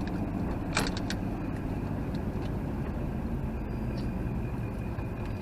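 Steady low rumble of a running vehicle, with a few short clicks about a second in.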